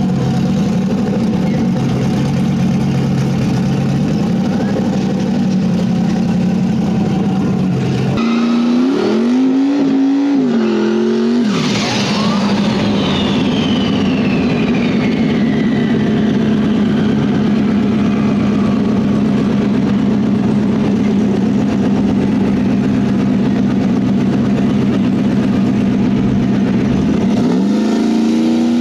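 Drag-race car engines idling loudly, with a stretch of revving rising and falling about eight seconds in. Near twelve seconds a sharp high whine starts and falls in pitch over several seconds while an engine keeps running, and the revs climb again near the end.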